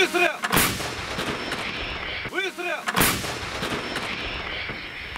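Towed artillery gun firing two rounds about two and a half seconds apart. Each is a sharp, loud blast followed by a long rolling echo.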